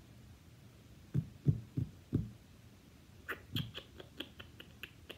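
Hardcover books being handled and shifted: four dull thumps, then a quicker run of light clicks and taps.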